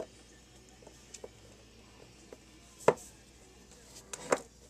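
A few sharp clicks and knocks of a metal screwdriver and a Maxtor hard drive's metal casing being handled on a tabletop. The loudest click comes about three seconds in, and a short cluster of knocks comes near the end.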